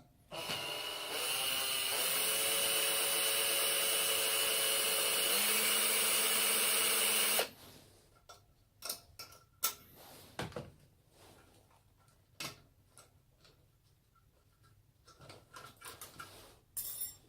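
Power drill-driver running for about seven seconds, backing out a screw, its pitch shifting a couple of times; then scattered light clicks and knocks of parts being handled.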